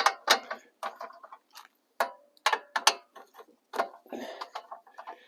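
Irregular metallic clicks and clacks, a few a second, some ringing briefly: small parts of a sawmill engine's recoil pull-starter being handled while its broken starter rope is worked on.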